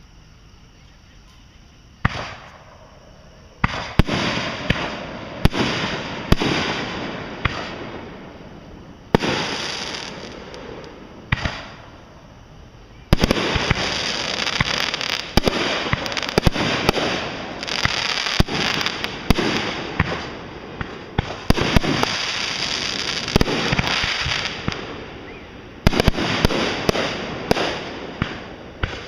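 Fireworks going off. After a quiet start come sharp bangs from about two seconds in, each trailing off in crackling. About halfway through the bangs come thick and fast, with steady crackling between them.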